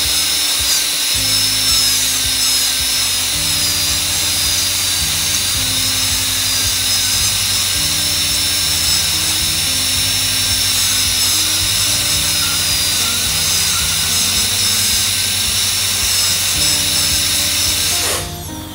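High-speed dental handpiece running with its water spray as it cuts the decay out of a tooth on a plastic model: a steady high whine over a hiss, stopping just before the end. Background music plays throughout.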